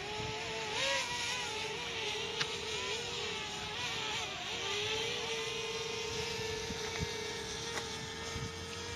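DJI Spark quadcopter's propellers humming in flight over a hiss of wind. The pitch wavers up and down as the motors work against the gusts, then holds steady about five seconds in.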